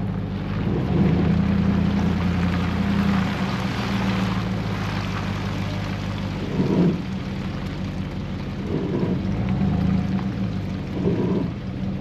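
Truck engine running steadily, a low hum that shifts in pitch about two-thirds of the way through.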